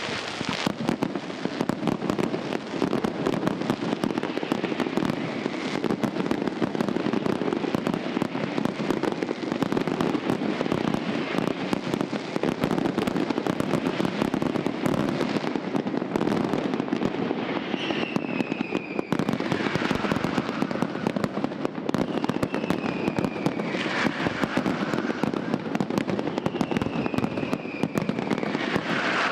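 Pirotecnia Vulcano aerial fireworks display firing without pause: dense crackling and rapid bangs, with several falling whistles in the second half.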